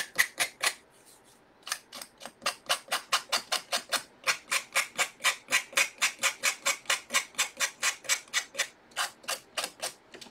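Sanding block rubbed quickly back and forth over the edge of scrapbook paper glued onto a small pumpkin ornament, wearing off the overhanging paper: a scratchy stroke about four or five times a second, with a short break about a second in.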